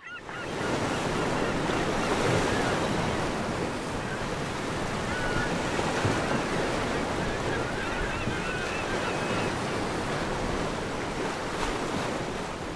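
Ocean surf washing steadily, with a few faint bird calls in the middle.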